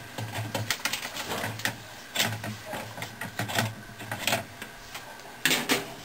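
Ratchet wrench clicking in short runs while loosening the long bolt that holds a top-loading washer's agitator, with a louder clatter near the end.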